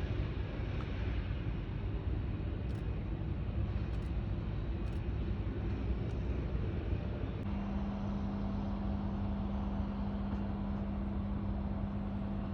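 Steady low rumble of jet airliner engines, with a steady hum setting in about halfway through.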